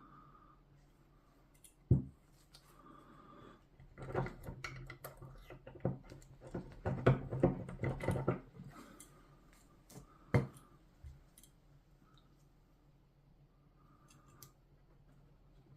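Handling noises at a workbench: scattered clicks and knocks of tools and parts. There is a sharp knock about two seconds in, a busy run of clicks and taps in the middle, and another single knock later, over a faint steady hum.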